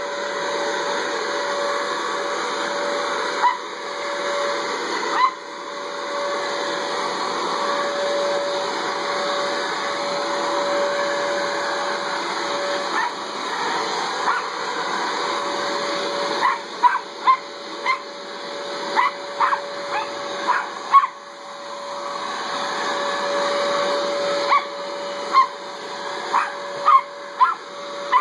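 Corded electric leaf blower running steadily with a constant whine, while a dog barks at it in short, sharp barks: two about 3 and 5 seconds in, then a quick run of them through the second half.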